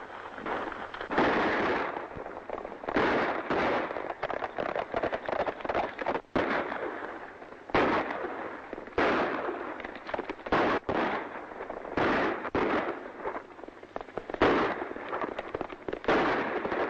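Gunfire from a film shootout: a dozen or so shots at irregular intervals, some in quick pairs, each followed by an echoing tail.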